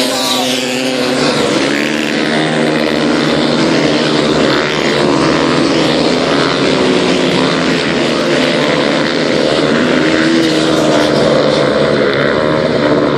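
A pack of supermoto racing motorcycles at race speed, several engines revving at once, their pitch rising and falling as the bikes go by and on around the bend.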